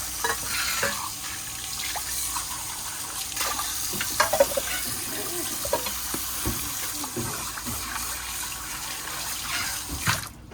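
Tap water running into a sink while scrubbed bowls are rinsed under it, with a few light knocks of the bowls. The water shuts off just before the end.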